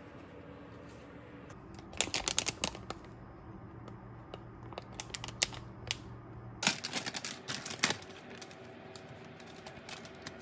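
Plastic packaging of uncooked roti crinkling in three short bursts of crackling as the pack is handled and a roti is taken out.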